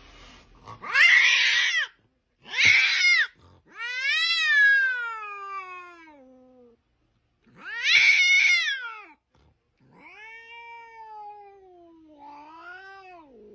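A tabby cat meowing loudly and repeatedly: about six drawn-out meows, the longer ones sliding down in pitch.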